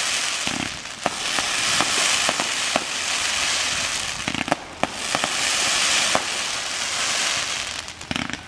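Fireworks display: a dense, steady crackle of many small pops from gold glittering shells, with scattered sharper bangs. It eases briefly about a second in, again around four and a half seconds, and near the end.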